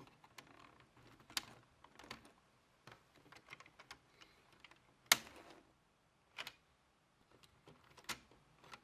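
Lego plastic parts clicking and clattering irregularly as a Lego rifle mechanism is handled, with one sharper snap about five seconds in.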